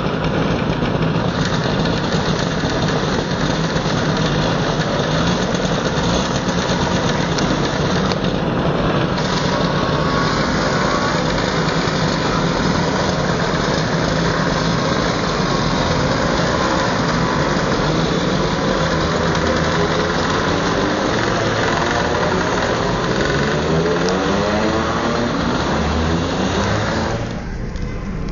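A pack of Lambretta and Vespa scooter engines running together at close range, with engines revving up near the end.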